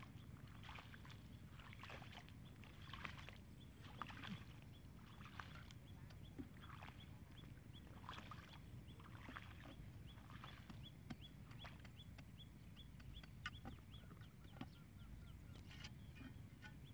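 Faint, irregular scrapes and dull strikes of a long-handled spade digging into wet soil, over a low wind rumble. Partway through, a rapid run of short high chirps, about four a second, comes in.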